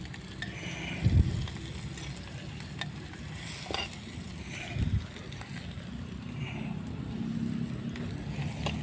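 A metal spoon stirring and scraping through a simmering flower gravy in an earthenware pot, with the liquid sizzling; two dull thumps come about a second in and near the middle.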